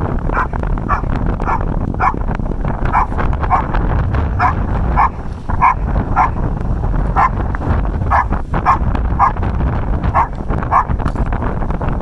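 Beauceron barking repeatedly at a helper in a blind, about two barks a second and stopping just before the end: the guarding hold-and-bark of IGP protection work. A steady low rumble lies underneath.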